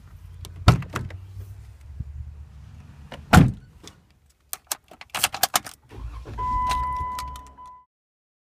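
Jeep Wrangler JK being got into and started: the door latch clicks open, the door shuts with a loud thump about three seconds in, keys click into the ignition, and the engine starts and runs about six seconds in with a steady high electronic warning tone over it, until the sound cuts off suddenly near the end.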